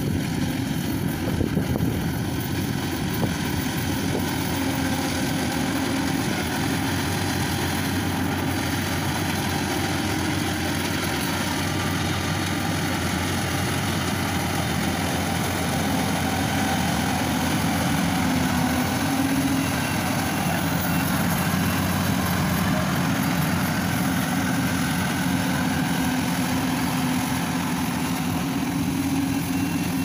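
Rice combine harvester's engine and threshing machinery running steadily while it harvests, a continuous mechanical drone with an unchanging pitch.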